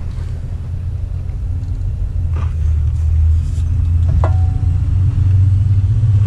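A steady low rumble, getting slightly louder, with two light knocks as the large 5-inch aluminium driveshaft tube is handled into place under the truck; the second knock, about four seconds in, leaves a brief ring.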